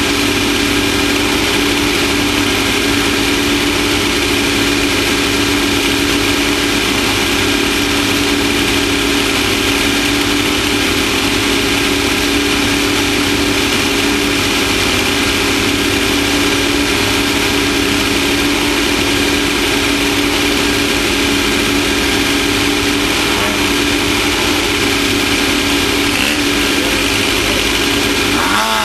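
Off-road race vehicle's engine running at a steady, unchanging pitch, a constant loud drone with no revving.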